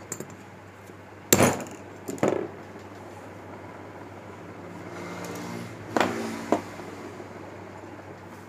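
Hammer striking a plug-spanner socket set on the valve spring retainers of a China 70cc motorcycle cylinder head, to knock loose the valve cotters: two sharp metallic blows in the first couple of seconds and two more about six seconds in.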